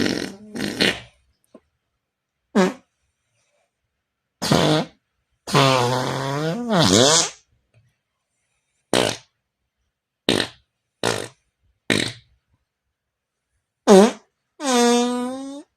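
A series of about ten imitation fart sounds with short gaps between, most of them brief blasts. Two are longer and pitched, their pitch wavering and sliding, one midway and one near the end.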